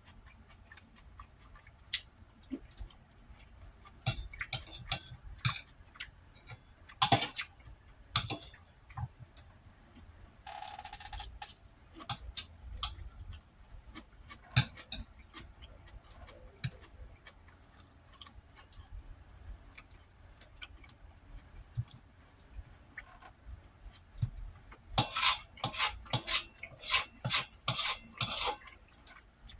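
Eating utensil clinking and scraping against a plate of bacon, rice and eggs, in scattered clicks with busier runs of scraping about four seconds in and again near the end.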